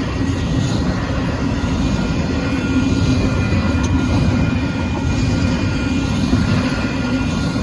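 Union Pacific intermodal freight train rolling past at speed: a steady, loud rumble of wheels on rail, with a thin, steady ringing tone above it.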